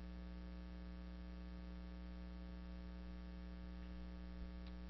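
Steady electrical mains hum with a stack of evenly spaced overtones, and a faint tick near the end.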